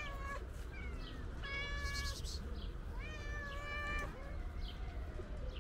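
Cat meowing: one short meow at the start, then two long drawn-out meows of about a second each, starting about one and a half and three seconds in.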